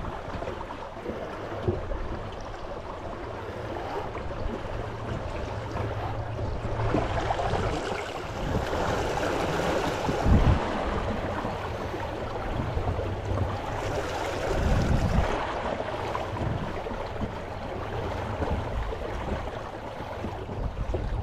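Water splashing and lapping around a small dinghy being taken out from the beach, with a low rumble of wind on the microphone. There is a single hollow knock about ten seconds in, and the water noise swells twice.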